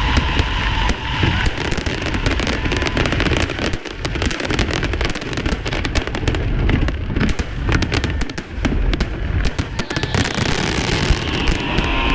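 Aerial fireworks going off in a dense, rapid barrage of bangs and crackles, thinning out near the end.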